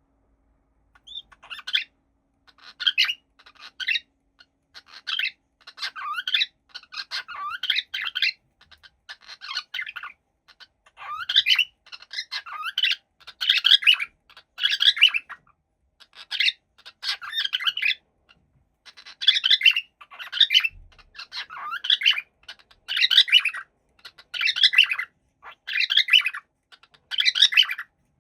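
Cockatiel chirping and warbling in a long run of short, repeated phrases, about one every second or so, with wavering pitch and brief pauses between them.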